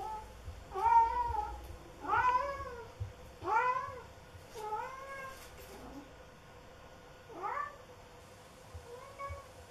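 Domestic cat yowling, about six drawn-out meows one after another, each rising then falling in pitch. The first three are the loudest.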